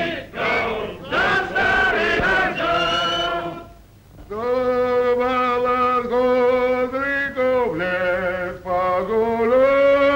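For about four seconds, short pitched honks that fall in pitch, from a flock of domestic geese. Then, after a brief pause, a man sings in long held notes.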